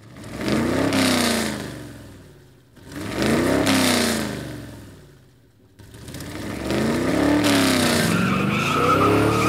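Car engine sound effect swelling and fading three times, its pitch rising then falling with each swell; the third is longest, with a steady high tone coming in near the end.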